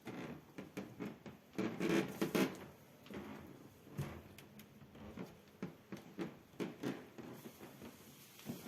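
Wooden floorboards creaking and squeaking under foot, in a run of short irregular creaks that are loudest about two seconds in: the squeak of loose boards rubbing against each other or their nails.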